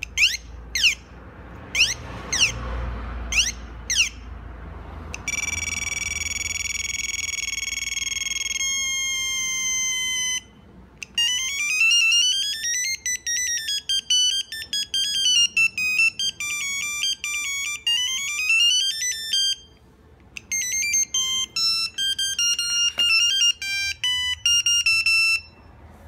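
Sony Ericsson T100 mobile phone playing its ringtones one after another as the list is scrolled. First comes a run of about six short falling chirps, then a long held electronic tone that steps down in pitch, then two fast bleeping melodies, each cut off abruptly.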